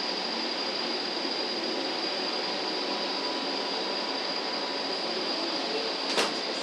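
Cable car station machinery running steadily, a constant noise with a thin high whine, as gondola cabins come through the station; a single sharp clack about six seconds in.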